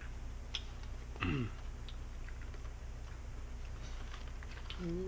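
Small scattered clicks and taps of a little cardboard candy box being handled and opened, over a low steady hum. A brief falling vocal sound about a second in.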